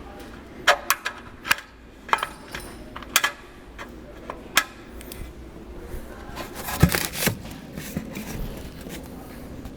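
Irregular light clicks, clinks and knocks of sheet-metal trim pieces and hand tools being handled, with several sharper strikes scattered through, the loudest about seven seconds in.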